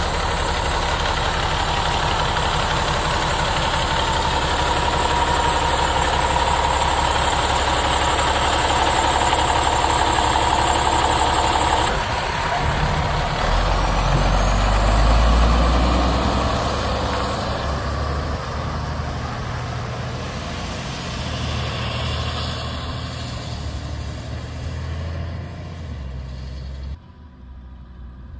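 Cummins ISM diesel engine of a tandem dump truck running steadily, then swelling louder from about halfway through, before the sound cuts off abruptly near the end.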